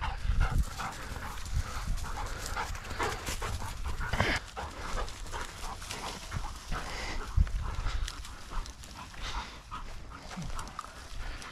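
Footsteps crunching and swishing through dry, frosty grass and stubble, with a hunting dog rustling through the cover and panting close by.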